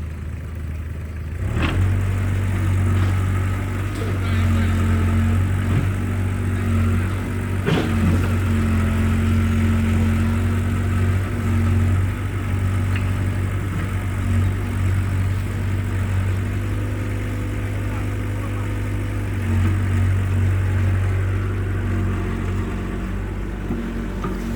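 Excavator's diesel engine running under load. It picks up about a second and a half in, then rises and falls as the machine works. There are a couple of sharp knocks, one near the start of the load and one about eight seconds in.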